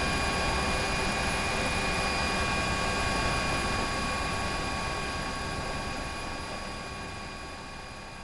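Helicopter running: a steady rush with several high, steady whining tones over it. It fades out steadily over the last few seconds.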